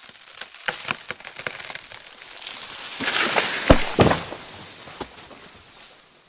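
Tree falling: a series of sharp wood cracks and snaps builds up, then a loud rushing crash with a heavy thud about three and a half seconds in, tailing off as the branches settle.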